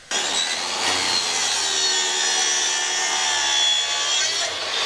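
Track saw (a plunge circular saw running along a guide rail) cutting through a sheet of plywood: a steady, loud, high whine of the spinning blade mixed with the rasp of the blade in the wood.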